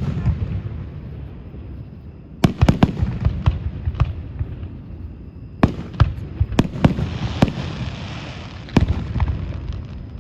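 Aerial fireworks bursting: a boom at the very start, a quick cluster of booms from about two and a half seconds in, then another run from about six seconds, with a hissing crackle around eight seconds.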